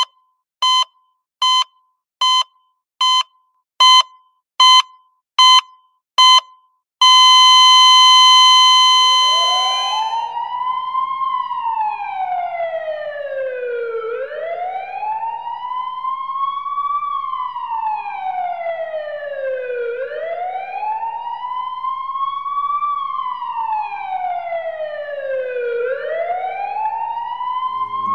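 Dispatch alert tones: nine short beeps under a second apart, then one long steady tone, which give way to an emergency siren wailing slowly up and down, about six seconds to each rise and fall, over a faint low hum.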